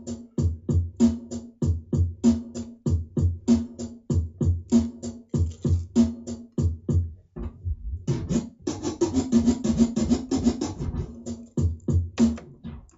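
Hip-hop drum-machine beat played from a turntable, with vinyl scratches cut over it; the music stops near the end.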